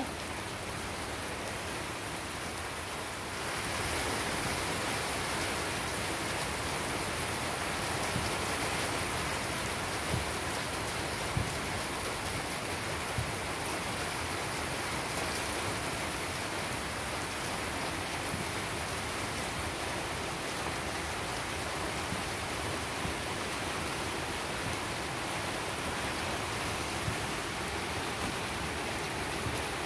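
Heavy rain falling steadily on puddled ground and concrete, an even hiss that grows a little louder about three and a half seconds in, with a few light taps.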